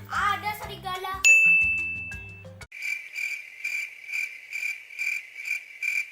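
A child's voice briefly, then a single bell-like ding that rings and fades. It is followed by a rhythmic high-pitched chirping, about two to three chirps a second, the kind of insect or cricket call an animal-sound clip plays.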